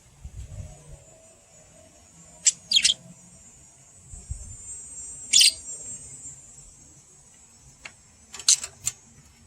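Budgerigars giving short, sharp chirps: two about two and a half seconds in, one near the middle, and a quick run of three near the end.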